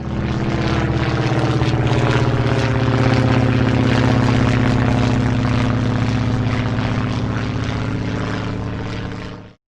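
Airplane engine droning steadily with a fast flutter. It grows a little louder towards the middle, eases slightly, then cuts off abruptly near the end.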